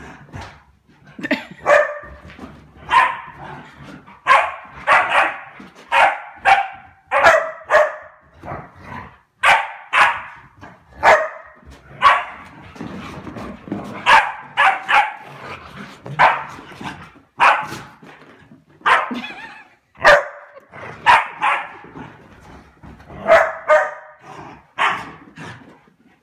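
Dog barking repeatedly in play: short, sharp barks in quick runs, about one or two a second, with brief pauses between runs.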